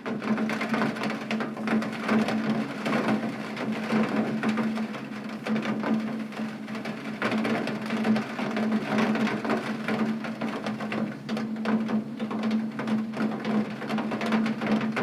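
Heavy rain striking a window: a dense, steady wash of many irregular drop hits on the glass, with a steady low hum underneath.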